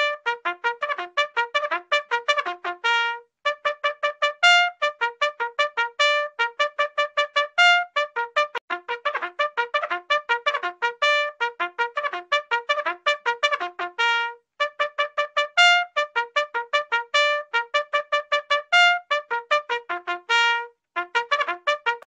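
Bugle sounding a fast call: quick tongued notes on only a few pitches, each short phrase ending on a longer held note, repeated over and over with brief breaks.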